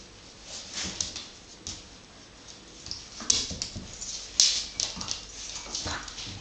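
Dogs at play: a run of short, high-pitched yips and whimpers, loudest about three and four seconds in, with scrabbling on a wooden floor.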